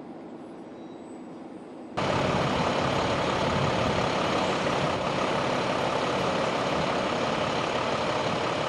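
A quiet steady hum, then about two seconds in an abrupt jump to the loud, steady sound of emergency vehicles idling, with an even rumble and no siren.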